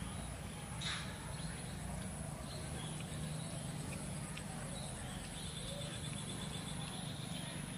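Faint outdoor background: a steady high whine over a low hum, with a few scattered faint clicks. A fast pulsing chirp begins about five and a half seconds in.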